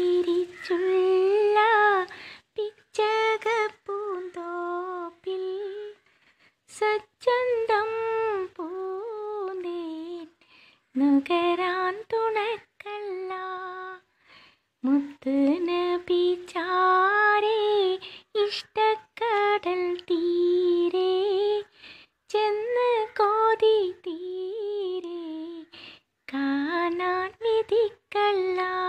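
A woman singing a Malayalam madh song, a devotional song in praise of the Prophet Muhammad, unaccompanied. Her melodic phrases bend in pitch and are separated by short pauses.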